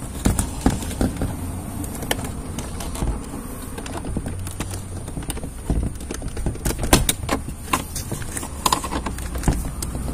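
Irregular sharp plastic clicks and knocks as the wiring connectors behind a car's inner door trim panel are worked loose and unplugged by hand.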